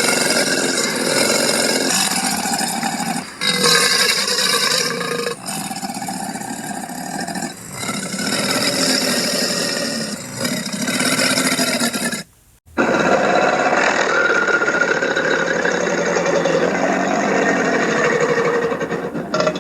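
Cartoon alligator Louis's vocal sound effects: a run of separate gravelly growls and rumbling throaty noises, one after another, with a short break about two-thirds of the way through.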